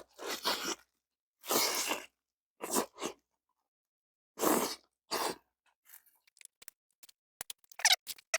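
Bites and chewing of crispy fried chicken skin, in several separate crunchy bursts, then a quick run of small sharp clicks and smacks near the end.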